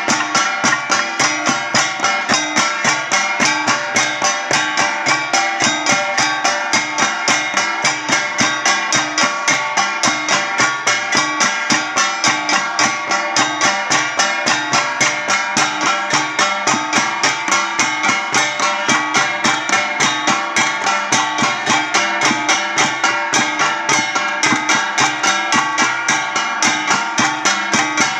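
Cordillera flat gongs played as an ensemble, struck in a fast, steady, unbroken rhythm, their metallic tones ringing over one another.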